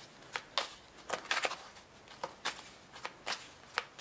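Tarot cards being shuffled by hand: a run of light card flicks and snaps, about two or three a second, with a quicker flurry just after a second in.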